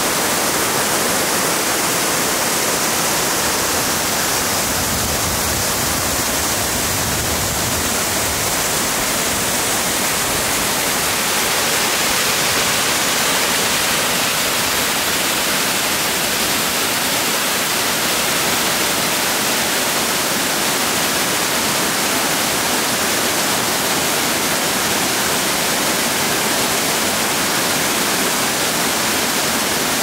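Waterfall cascading over dark rock and splashing into its pool, a loud, steady rush of water.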